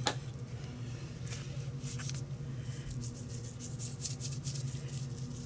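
Spice shaker bottle opened with a click, then shaken over a pork roast: light, quick rattling taps, most of them in the second half. A steady low hum runs underneath.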